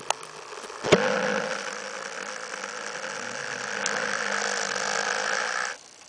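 A long, loud snore from a sleeper. It starts sharply about a second in, holds rough and steady for nearly five seconds, and cuts off abruptly near the end.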